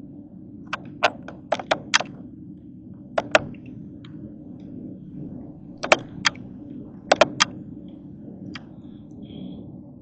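Irregular sharp clicks and knocks, mostly in quick groups of two or three, over a steady low hum.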